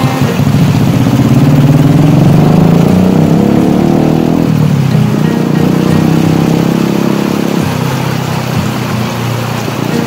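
A motor engine running over the rush of churning water. Its pitch climbs over the first few seconds, drops about halfway through, and shifts again near the end.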